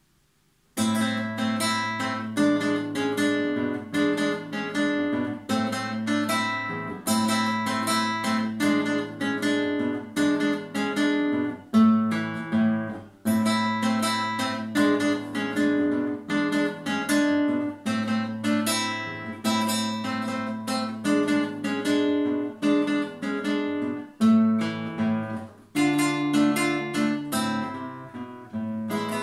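Acoustic guitar played solo: a piece of strummed chords and plucked notes over ringing bass notes, starting about a second in.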